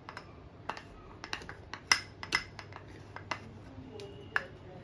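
A spatula scraping and tapping against a small glass bowl as thick curd is scraped out into another glass bowl: a string of irregular light clicks and knocks on glass, the sharpest about two seconds in.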